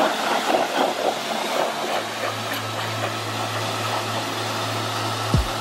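Pressure washer spraying water onto a ceramic-coated car wheel to rinse off brake dust: a steady hiss of spray, with the machine's motor humming from about two seconds in and winding down with a falling pitch near the end.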